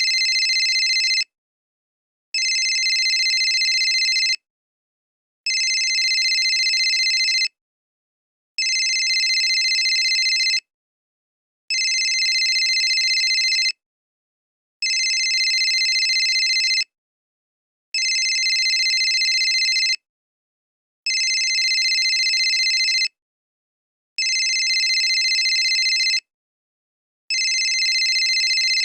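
Old mobile phone ringing: a high electronic ring in bursts about two seconds long, each followed by about a second of silence. It repeats evenly, about ten rings, each at the same level.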